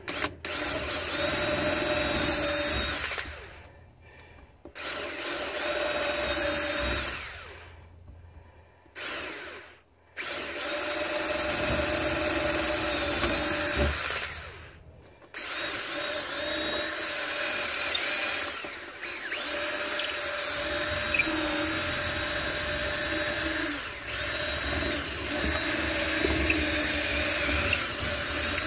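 Cordless drill boring through thin plywood to cut a slot. It runs in about six bursts of a few seconds each, with short pauses between them, and the last run lasts about nine seconds.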